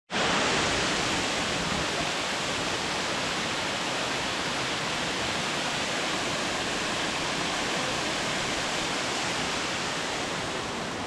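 Waterfall rushing in a steady, unbroken roar of water noise, running at heavy flow after a week of rain.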